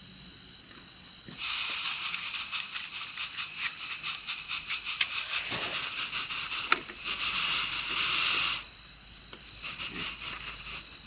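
Portable gas camping stove hissing with gas, with a crackly texture and one sharp click, starting about a second in and stopping suddenly before the end. The cook takes the gas flow to be stop-start with a slight leak.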